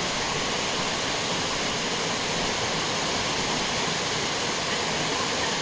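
Waterfall swollen by a flash flood: a steady, even rush of falling water.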